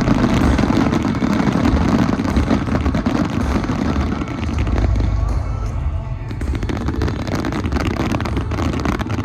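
Fireworks crackling and popping over steady background music with a deep low rumble; the crackle is densest in the second half.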